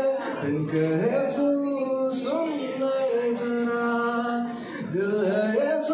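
A man singing long held notes that slide up and down, accompanying himself on an acoustic guitar.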